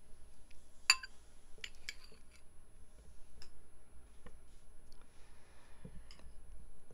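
Eating utensil clicking against a dish: one sharp click about a second in, a few lighter clicks about two seconds in, and another near the end.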